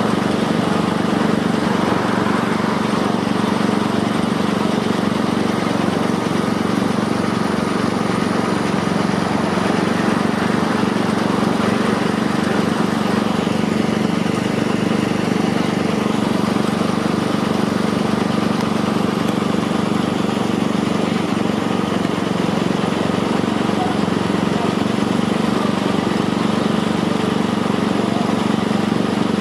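Diesel engines of heavy construction machinery, the cranes at a river work site, running steadily: an even engine hum with no break or change in pitch.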